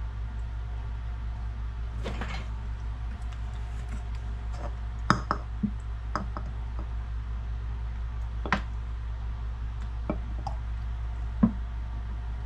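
Light knocks and clinks of a plastic funnel, an oil bottle and a plastic measuring cup against a glass quart jar as cooking oil is measured out and poured in, a handful of separate taps, over a steady low hum.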